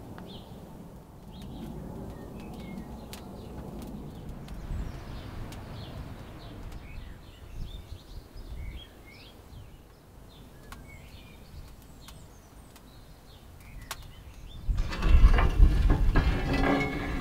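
Small birds chirping over a low outdoor background. About fifteen seconds in, a much louder, dense rushing noise begins as the iron door of a brick smoker is opened and smoke pours out.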